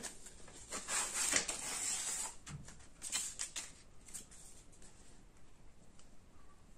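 A sheet of thermo-adhesive transfer film rustling and crinkling as it is handled and laid onto a cotton T-shirt: a run of rustles in the first two seconds or so, a few lighter ones around the three-second mark, then only faint handling.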